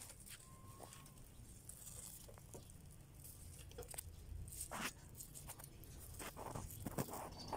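Rabbits chewing and pulling at fresh grass leaves: soft, irregular crunching and tearing of the blades with rustling of the bunch, a few louder crunches in the second half.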